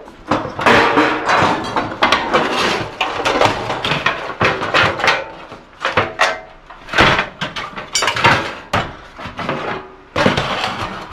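Irregular metal knocking, banging and scraping as parts of a gas wall heater are worked loose by hand during dismantling.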